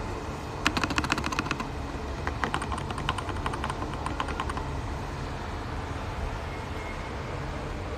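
Typing on a mechanical keyboard fitted with PBT Cherry-profile keycaps: two short runs of quick key clacks, over a steady low hum.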